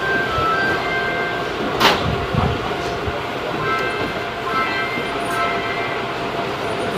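Interior of a Busan Metro Line 1 subway car running between stations: a steady rumble with faint whining tones. A sharp click about two seconds in, followed by a couple of low thumps.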